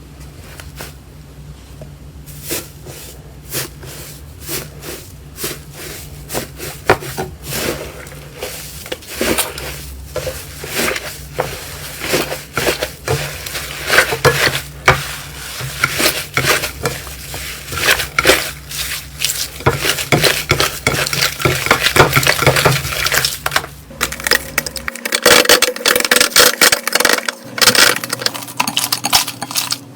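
Slime being pressed and squeezed by hand, giving dense crackling clicks and pops that start about two seconds in and grow busier toward the middle. The sound changes about 25 seconds in, as a new clip of slime play begins.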